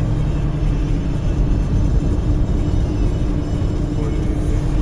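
Steady road and engine rumble of a moving car as picked up by a dashcam inside the cabin, with a constant low hum and no impact.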